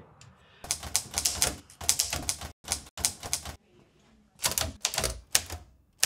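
Imperial Good Companion Model T manual typewriter being typed: the typebars clack against the ribbon and platen in an uneven run of keystrokes, with a pause of about a second midway.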